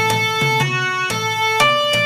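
Background instrumental music: a melody of distinct pitched notes changing about twice a second over a steady low tone, each note starting with a sharp attack.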